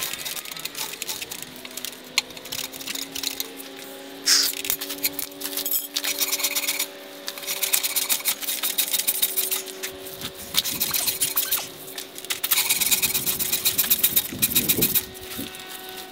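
Rapid rasping strokes of hand-tool work on the workpiece, coming in bursts with short pauses, over a faint steady hum.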